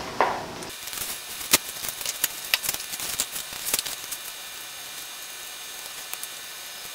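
Irregular light clicks and taps of plastic cups and small plastic bottles being handled on a steel workbench while resin is mixed, thinning out after about four seconds.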